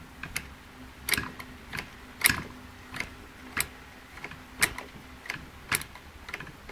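Irregular metallic clicks and clacks, about one or two a second, as a homemade band brake and the roller chain on a trimmer engine's clutch drum are worked by hand.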